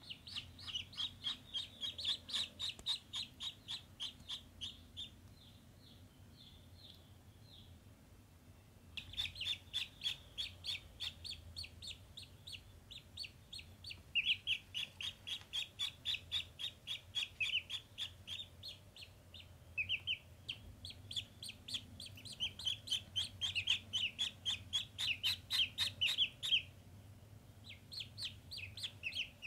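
Ducklings peeping: rapid runs of short, high peeps, several a second, broken by a pause of a few seconds about five seconds in and a short one near the end.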